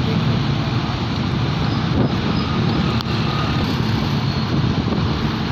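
Steady engine and road noise of a vehicle driving along a street, heard from on board.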